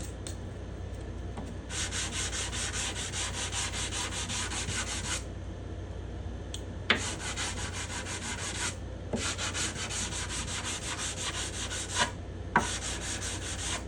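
Sandpaper on a hard plexiglass block being rubbed with the grain across a spruce guitar top in quick back-and-forth strokes. There are four runs of strokes with short pauses between them, and a light tick or two where the block is set down or lifted.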